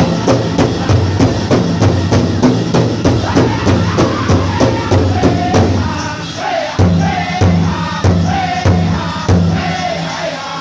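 Powwow drum group singing a chicken dance song in high, wavering voices over a big drum struck in a fast, steady beat. About six seconds in, the steady beat stops and the singing carries on, punctuated by single heavy drum strikes about once a second.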